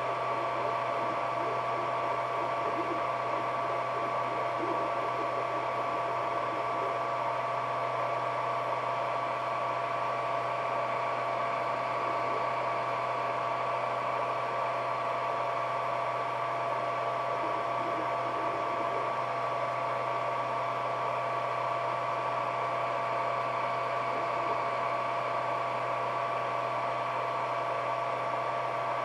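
Ender 3D printer running: a steady hum with two steady whining tones over an even hiss, unchanging throughout.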